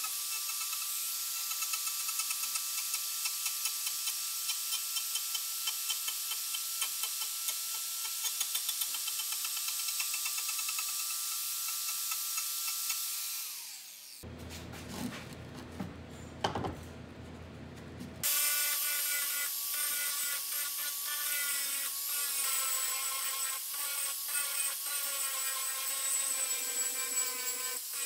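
Angle grinder driving a Manpa carving attachment, running steadily while it cuts a hollow in walnut, then winding down about halfway through. After a few seconds of rough handling noise, a Bosch angle grinder with a sanding disc runs against walnut, its whine wavering as the disc is pressed on.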